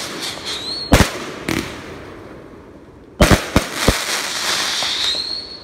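Aerial fireworks bursting overhead. Sharp bangs come about a second in, then a quick cluster of four or five bangs around three seconds in. A long hiss of crackling stars follows, with a thin rising whistle near the end.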